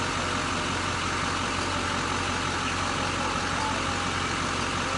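A vehicle engine idling steadily: a low, even hum under a constant hiss.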